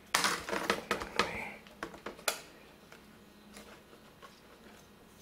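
Light plastic clicks and rustling from a laptop's flat ribbon cable and its connector being handled, a quick cluster in the first two seconds or so, then only faint room tone.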